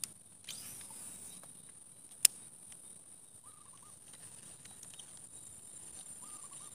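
Insects buzzing steadily at a high pitch in swampy grassland, with one sharp click a little over two seconds in and two short, faint warbling calls, one in the middle and one near the end.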